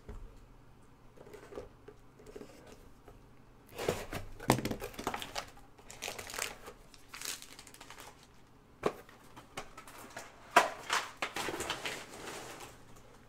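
Plastic wrap being torn and crumpled off a sealed trading-card hobby box. Irregular crinkling starts about four seconds in and goes on in bouts, with a couple of sharp snaps about two-thirds of the way through.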